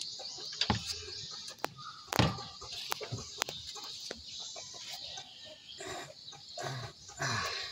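Chickens clucking, with sharp metallic clicks and knocks of hand tools as the lower suspension arm's bolts are worked on.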